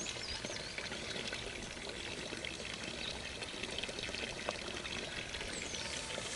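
Steady trickling, splashing water.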